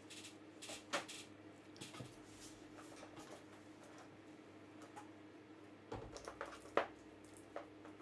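Scattered light clicks and rustles of trading cards and their packaging being handled on a table, with a cluster of sharper clicks about six to seven seconds in, over a faint steady hum.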